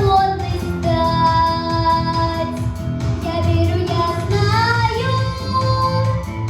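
A girl singing solo over a pop backing track with a steady beat, holding some long notes.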